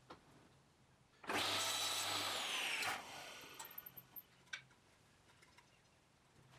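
Table saw motor running loudly for about a second and a half with a high whine, then cutting out and winding down with falling pitch. A few light clicks follow.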